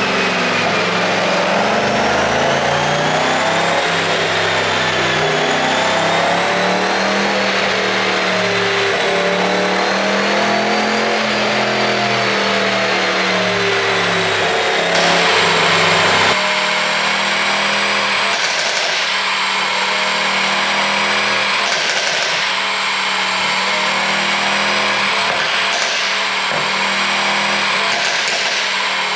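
Mercedes-AMG E63's 4.0-litre twin-turbo V8 running, its pitch rising and falling slowly for about the first fifteen seconds. Then the sound shifts to a steadier note broken by several short, sharp bursts, heard with an ECU tune built to make the exhaust pop.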